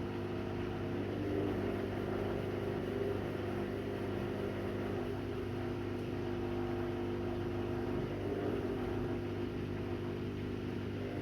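Front-loading washing machine running, its motor and turning drum giving a steady hum. The drum makes odd noises that the owner puts down to the machine seldom being used.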